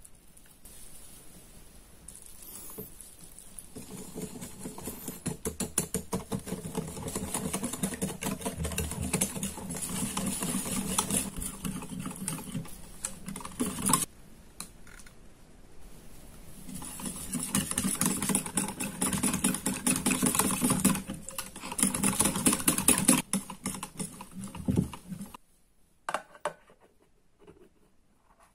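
Wire whisk beating thin crepe batter in a glass bowl: a fast, dense clicking and tapping of the wires against the glass. It builds up over the first few seconds and runs in two long spells with a pause of a few seconds about halfway.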